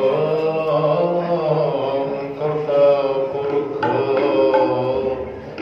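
Sikh kirtan: a hymn sung to sustained harmonium-like accompaniment, a slow melodic line over a held low tone.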